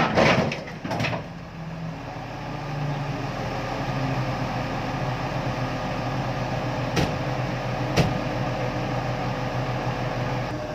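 Remote-controlled drilling machine running steadily with a low hum, with two sharp clicks about seven and eight seconds in.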